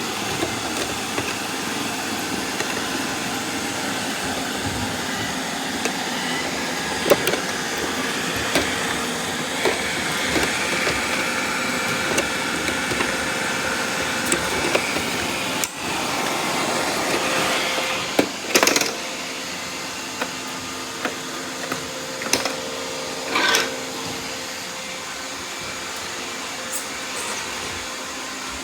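Robot vacuum cleaner running steadily, with scattered clicks and knocks; the loudest knock comes about 18 seconds in. The running sound drops a little about 24 seconds in.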